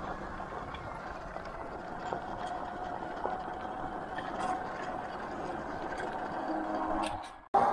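Sur-Ron electric dirt bike's motor whining at a fairly steady pitch while riding, over a haze of tyre and wind noise. The sound cuts out suddenly near the end.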